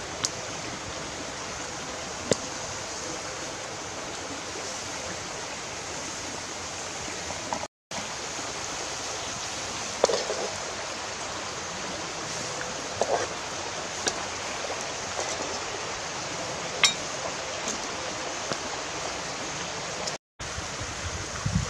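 Steady rushing of a flowing stream, with a few light clicks and knocks here and there. The sound cuts out completely twice for a moment.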